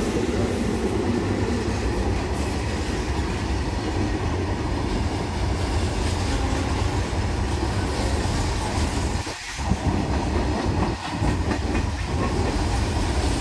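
Freight train of covered goods wagons passing close by at speed: a steady heavy rumble with the clickety-clack of wheels over rail joints, and a brief lull followed by a sharp knock about nine and a half seconds in.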